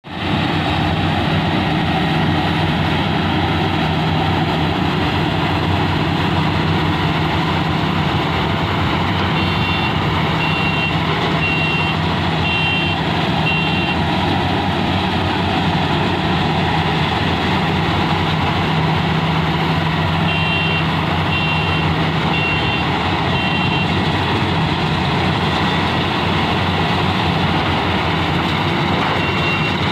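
Rice combine harvesters' diesel engines and threshing machinery running steadily under load as they cut ripe paddy. A beeper on one of the machines sounds two spells of short, high beeps, about ten seconds in and again about twenty seconds in.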